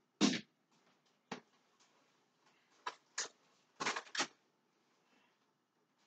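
Irregular knocks and clatters of kitchen things being handled. The loudest comes right at the start, single knocks follow over the next few seconds, and a quick run of three comes about four seconds in.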